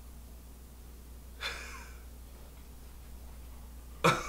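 Quiet room with a soft breathy sound about a second and a half in, then a sudden short breathy laugh near the end.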